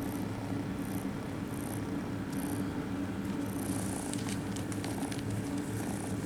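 Kittens purring close up, a steady pulsing rumble, with scratchy rustles over it in the second half.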